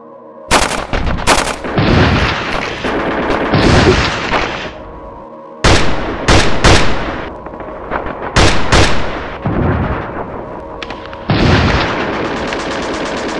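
Gunfire: bursts of automatic fire and single rifle shots, many in quick succession.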